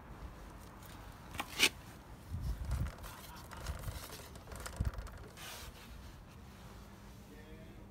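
Faint handling noise and footsteps from someone walking round with a handheld camera: soft scuffs and rustles, a few dull thumps, and one sharp click about a second and a half in.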